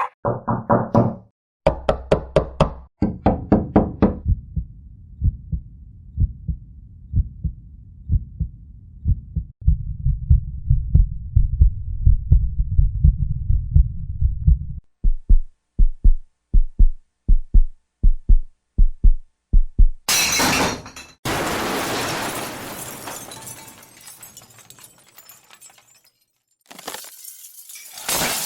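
A run of heartbeat sound effects: low thumps repeating at several different speeds, some over a low hum beneath. About twenty seconds in they give way to noisy breaking crashes that die away.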